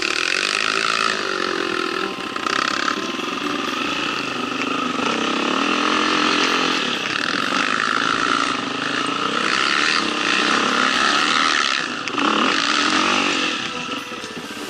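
Enduro motorcycle engine running and revving, its pitch rising and falling repeatedly.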